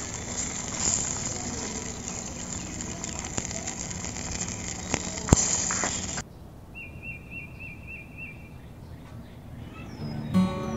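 A miniature pan of fish-head curry sizzling, with the clicks and scrapes of a small spoon stirring against the steel. Then, after a sudden cut, a quieter background with a repeated chirping call, and acoustic guitar music starting just before the end.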